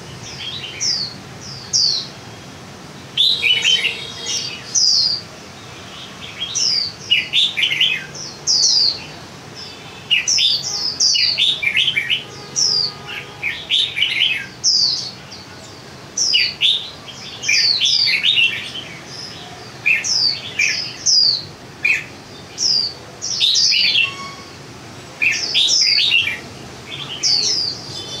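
Caged red-whiskered bulbul singing its full song: short phrases of quick falling whistles, repeated every second or two.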